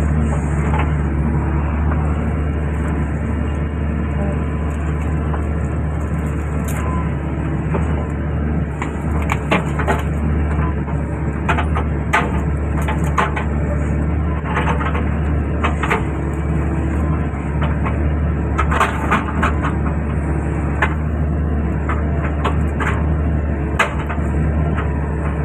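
Hydraulic excavator's diesel engine running steadily, with scattered sharp cracks and clanks from the machine working.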